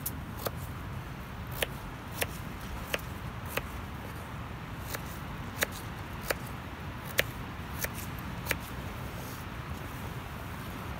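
A knife cutting through raw potato on a hand-held wooden cutting board: about a dozen sharp taps as the blade strikes the wood, irregularly spaced, stopping near the end, over a steady low background rumble.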